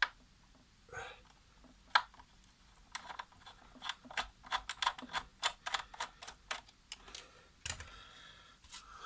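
Long screwdriver working screws deep in the plastic housing of a Krups Dolce Gusto coffee machine: a few separate sharp clicks, then a quick irregular run of small plastic and metal clicks, about three or four a second, with a short scrape near the end.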